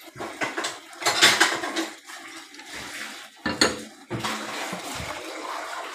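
Crockery clattering: a serving bowl and plates knocking together and being set down, with a sharp knock about three and a half seconds in, then a steady hiss.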